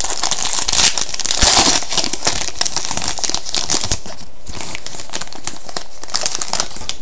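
A trading-card pack wrapper being torn open and crinkled, loudest in the first few seconds, followed by lighter clicking as the cards are handled.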